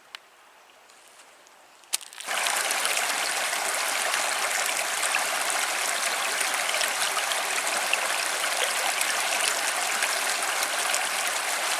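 A river's water running steadily, a dense even rush that begins abruptly about two seconds in after a quiet start and a click.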